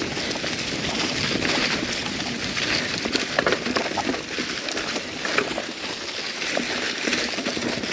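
Mountain bike riding over a dirt trail: a steady crackling rush of knobby tyres on the ground, dotted with many small clicks and rattles from the bike.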